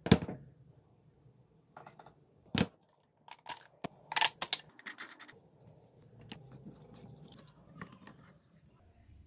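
Handling noises from a cordless angle grinder. There is a loud knock right at the start as it is set down on the wooden bench, another knock a couple of seconds later, and then a run of clicks, clinks and rattles as the plastic side handle and the metal wheel guard and flange parts are taken off. The motor does not run.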